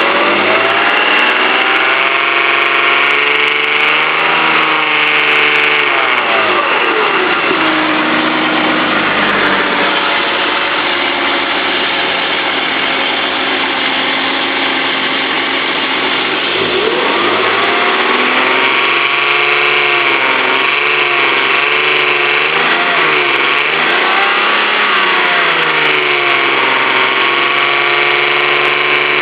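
BMW 325's straight-six engine running, its revs rising and falling several times with a steady stretch in the middle, carrying an abnormal noise that the owner places on the timing-chain side or the VANOS unit, though the chain tensioner has already been replaced.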